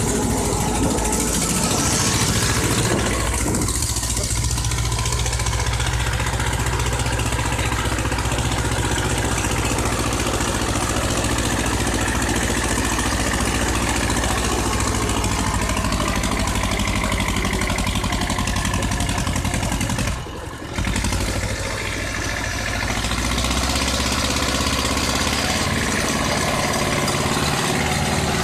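Ursus C-330M tractor's two-cylinder diesel engine running hard at full throttle as it climbs a steep hill pulling a trailer. The sound drops out briefly about twenty seconds in.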